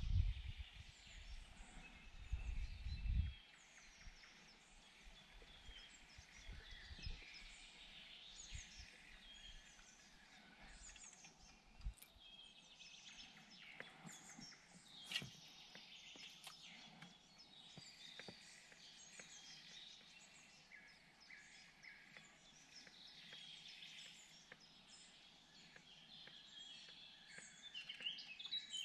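Many birds chirping and singing, short overlapping calls throughout, faint. A low rumble in the first three seconds.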